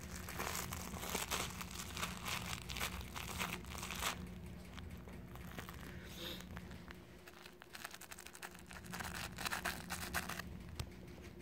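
Sheltie puppy chewing and tugging at a plush toy, making crinkly rustling. It is heavy for the first four seconds, quieter in the middle, and comes again in a burst near the end.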